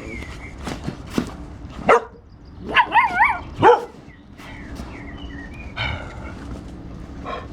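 Puppies yipping and whining: a burst of short, high-pitched yelps with a wavering pitch about two to four seconds in.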